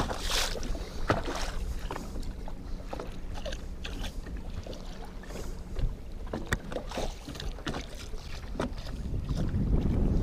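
Small waves lapping and slapping against a boat's hull in a steady wind, with irregular sharp knocks and splashes.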